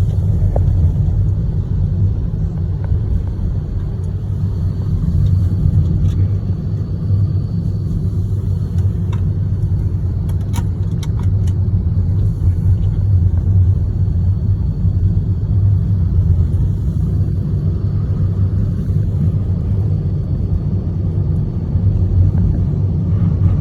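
Steady low rumble of a car on the move, heard from inside the cabin: engine and road noise. A few faint clicks come about ten seconds in.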